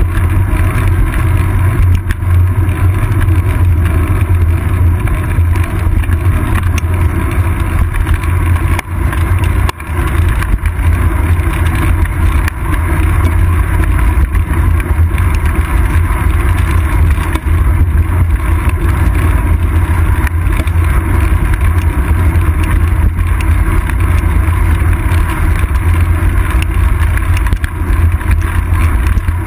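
Wind buffeting and road vibration on a bicycle's seat-post-mounted GoPro Hero 2 while riding: a loud, steady low rumble that dips briefly about ten seconds in.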